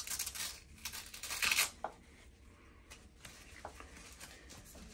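Hook-and-loop (Velcro) strap on a knee brace being ripped open: a few short tearing rasps in the first two seconds, the loudest about a second and a half in, then quieter rustling as the strap is handled.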